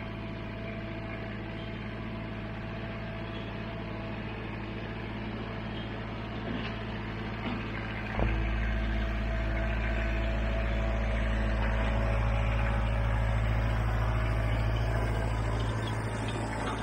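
Kubota tractor's diesel engine running steadily as it drives up pulling a Land Pride land leveler across asphalt millings, growing louder about halfway through as it nears, with one sharp clunk at that point. A crunching of millings under the leveler and tyres rides over the engine.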